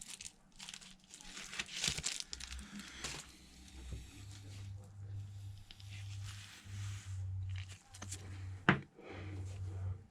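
Crinkling, rustling handling noise in the first few seconds. A low pulsing hum follows, with a single sharp click near the end.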